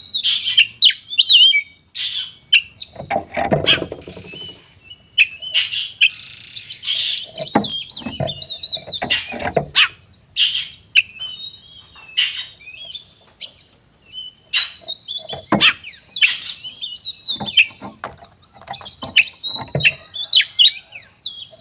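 Oriental magpie-robin (kacer) in aggressive fighting song: a fast, varied stream of high whistles, chirps and harsh notes with brief pauses. This is the territorial 'narung' song that provokes rival males.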